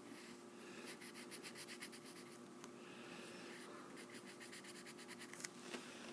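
Quick back-and-forth drawing strokes scratching on paper, in two runs of several strokes a second, over a faint steady hum.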